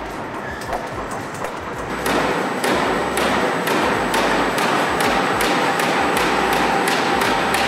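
Toro hot foil stamping and embossing unit of a narrow-web label press running at full speed, its stamping head striking in a fast, even rhythm of about four strokes a second (14,000 strokes per hour). The strokes are louder from about two seconds in.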